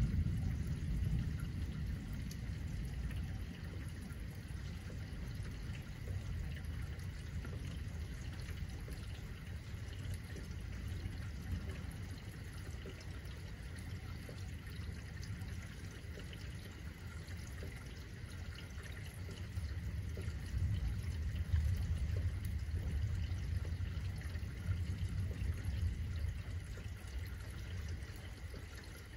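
Rain falling and trickling steadily. Under it, low rolling thunder fades away over the first few seconds, then a second long rumble swells about twenty seconds in and dies down near the end.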